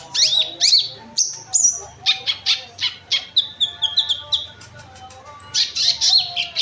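Sunbird ('kolibri ninja') singing a fast, busy song of sharp chirps and down-slurred high notes, with a quick run of repeated notes midway. A short pause comes about five seconds in, then the chirping resumes.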